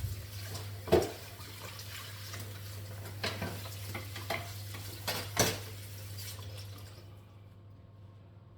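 Water running from a kitchen tap into a sink, with a few knocks of dishes against it; the water stops about seven seconds in.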